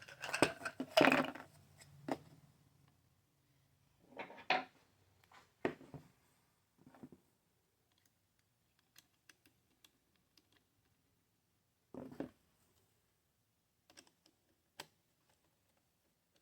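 Small metal parts of a jigsaw's gear housing clicking and clinking as they are handled and fitted together by hand. The clicks come in a short flurry at the start, then singly with long quiet gaps between.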